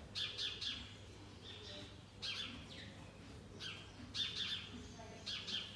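Small birds chirping: clusters of quick, high, downward-sweeping chirps about every second, over a faint steady low hum.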